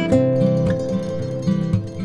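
Background music: acoustic guitar plucking and strumming, with a note held through the middle.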